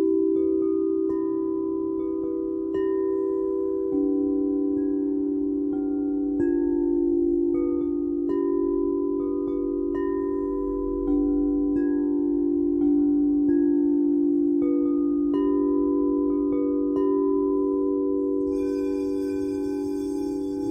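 Sound-therapy instruments: singing bowls hold a steady low ringing drone while chimes ring a string of clear, overlapping notes, about one a second. Near the end, bright high ringing overtones swell in.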